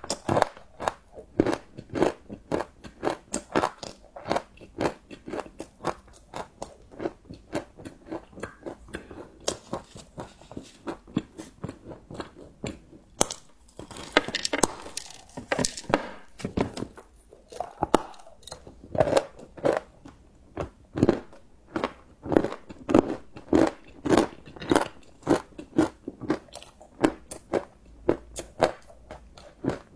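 Close-miked chewing of crunchy chocolate: a steady run of crisp crunches, about two to three a second, with a longer, noisier crunch about fourteen seconds in.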